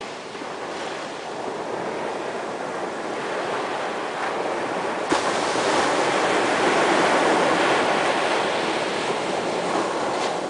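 A steady rushing noise, like surf or static, that slowly swells, with a single click about halfway through. It cuts off abruptly at the end.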